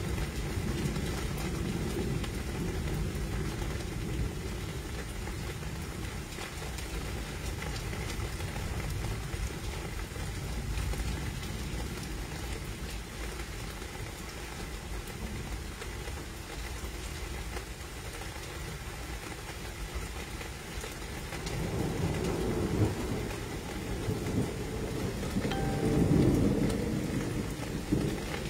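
Steady rain during a thunderstorm, with a low rumble of thunder swelling and rolling about three quarters of the way through.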